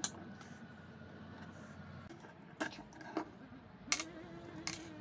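A few sharp clicks and light taps from the metal armature and parts of a disassembled angle grinder being handled and set down, over a steady low hum.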